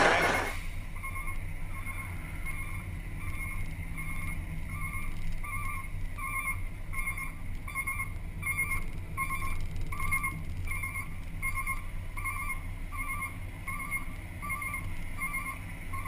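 A truck's electronic warning beeper sounding rapidly, about two to three high beeps a second, over the low running of the truck's diesel engine while its hydraulic roll-off hoist is raised.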